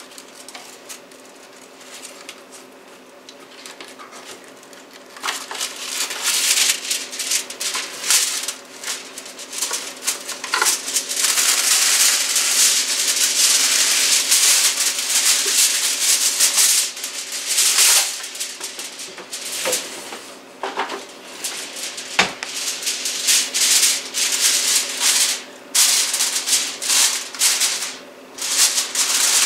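Aluminum foil crinkling and crackling as a sheet is pulled off the roll and pressed down over a glass casserole dish. It is quiet at first, then becomes loud and dense from about five seconds in.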